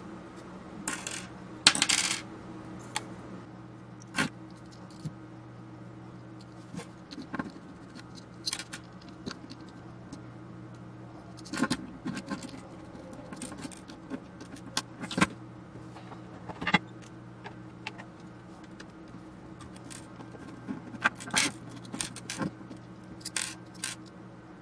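Small metal parts and hand tools clicking and clinking on a workbench while an avionics control box is taken apart: irregular sharp clicks, loudest about two seconds in, over a steady low hum.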